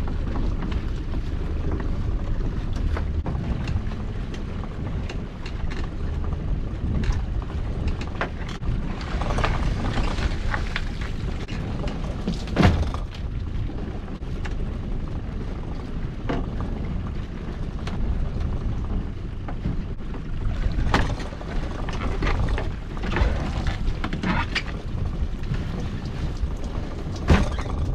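Steady low rumble of wind and water around a small fishing boat, with scattered knocks and clunks as a string of lobster pots is hauled up over the side and handled on deck. The loudest clunk comes about halfway through.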